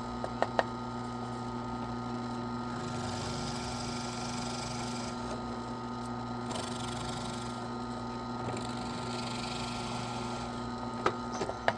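Steady low electrical or motor hum, with a few sharp clicks about half a second in and again near the end.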